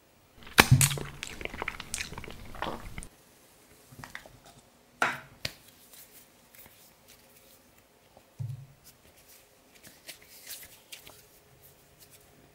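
Close-miked hands squishing, pressing and kneading soft green modelling clay. There is a loud crackly burst in the first few seconds, then quieter squelches with a few sharp clicks and a soft thump.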